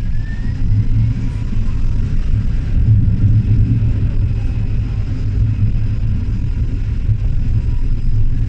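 Tram running along the track: a steady low rumble from the wheels and running gear, with a faint rising whine near the start as it gathers speed. Heard from the front of the tram.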